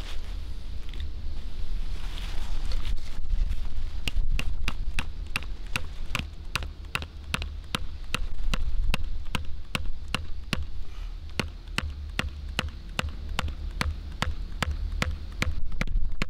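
A hammer striking a thin metal tent stake again and again, driving it into the ground at a tarp corner: a quick, even series of sharp metallic taps, about three a second, from about three seconds in until near the end. A steady low rumble runs underneath.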